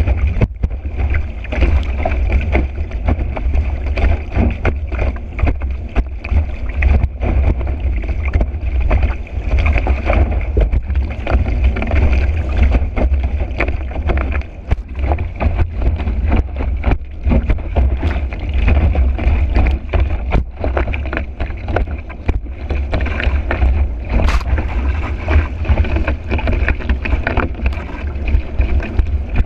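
Heavy wind buffeting on a board-mounted action camera's microphone as the board skims fast over choppy water, with a steady low rumble and frequent short knocks and splashes from the board hitting chop.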